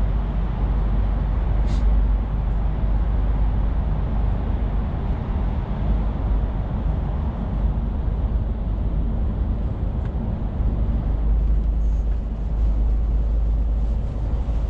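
Cab noise of a Scania truck at road speed: a steady low engine drone with tyre and road noise. A short click about two seconds in.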